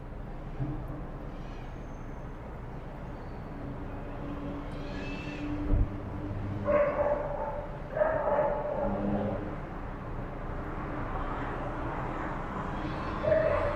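Dogs barking in separate calls, several seconds apart, with a longer held lower call between them.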